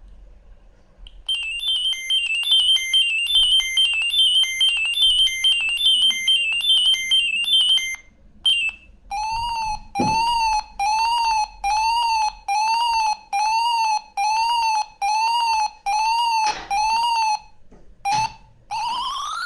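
Siemens M65 mobile phone playing its built-in ringtones through its loudspeaker. A fast beeping melody runs for about seven seconds and stops. Then a short chirping tone repeats about one and a half times a second, with a few button clicks, and near the end a new tone of rising sweeps begins.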